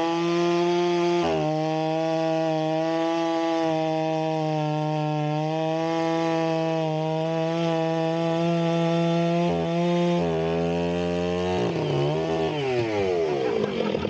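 Greenworks battery electric chainsaw cutting through a thick log under heavy load, its motor whine holding one steady pitch with two brief dips. Near the end the pitch falls and swings back up as the motor slows and picks up speed again.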